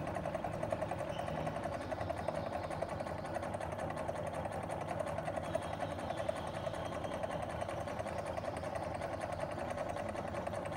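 AC servo motor coupled to a DC motor acting as its load, running at about 630 rpm with a steady mechanical whirr while the load is gradually increased.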